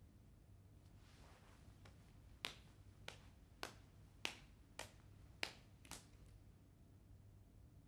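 About seven sharp finger snaps in an even rhythm, roughly one every 0.6 s, over near-silent room tone, after a faint soft swish of movement.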